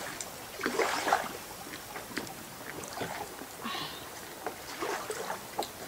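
Kayak paddling: irregular splashes of a paddle in the water, with scattered small knocks and clicks.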